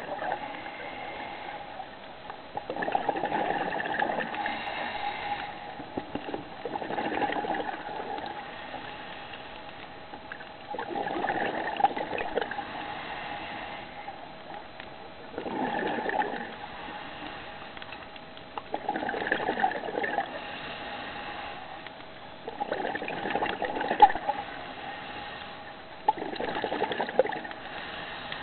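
Scuba regulator exhaust bubbles gurgling out in a burst about every four seconds, one per exhaled breath, heard underwater, with a faint steady hum between breaths.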